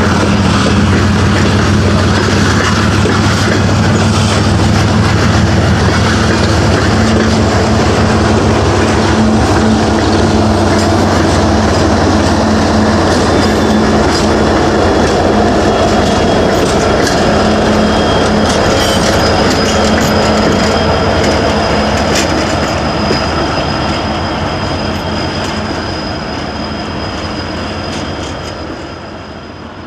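Loaded coal hopper train rolling past close by: steady wheel and rail rumble with clicking over rail joints and a thin wheel squeal. The locomotives go by partway through, and the sound fades over the last few seconds.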